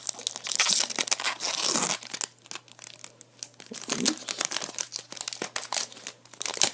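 A trading-card booster pack's plastic wrapper being torn open and crinkled, loudest in the first two seconds. It is followed by lighter, scattered crackles and rustles as the stack of cards is pulled out and handled.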